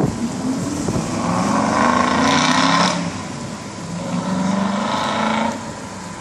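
Boat engines running as boats motor out of the lock. The engine sound swells twice: from about a second in until about three seconds, and again from about four seconds in to five and a half.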